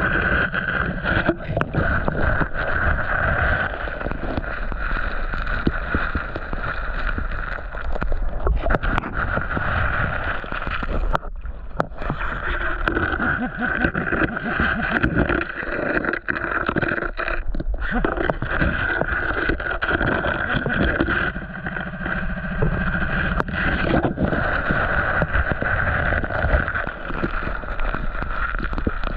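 Creek water sloshing and gurgling steadily as someone wades through it, with scattered small knocks.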